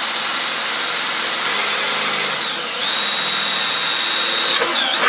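Cordless drill boring a small hole by hand through the side of a sheet-metal amplifier chassis, taken slowly. The motor whine rises and falls in pitch several times as the bit bites.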